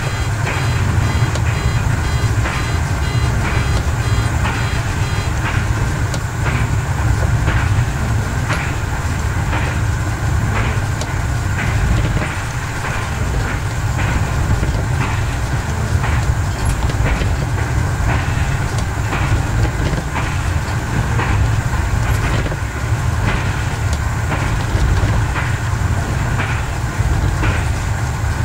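Y1 diesel railcar, rebuilt with Volvo engines, running along the line as heard from its driver's cab: a steady low engine drone with the wheels clicking over rail joints about once a second. A rapid high beeping sounds for the first several seconds, then stops.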